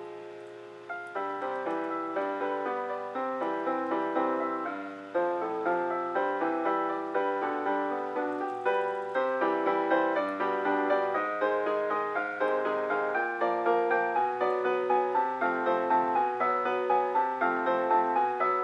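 Solo piano playing an étude: a continuous run of notes, several a second, with a short lull about a second in and a louder entry about five seconds in.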